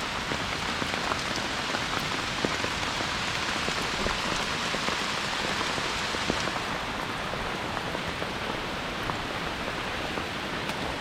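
Heavy rain falling steadily, an even hiss sprinkled with individual drops ticking close by; the highest part of the hiss dims about six and a half seconds in.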